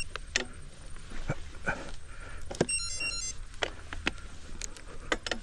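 Scattered sharp clicks and knocks over a steady low rumble, with a brief cluster of high chirping tones about three seconds in.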